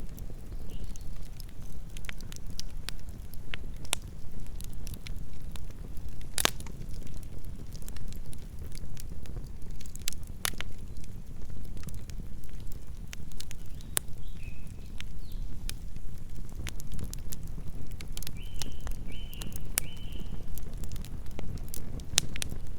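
Campfire burning: a steady low rumble with scattered crackles and sharp pops from the burning wood, the loudest pop about six seconds in. A few short high chirps sound near the end.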